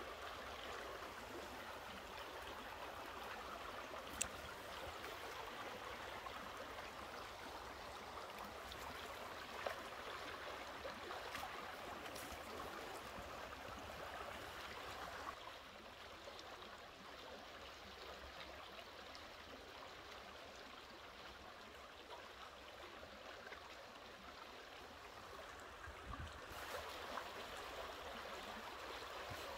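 A stream running faintly and steadily, a little quieter from about halfway through, with two short sharp clicks, about four and ten seconds in.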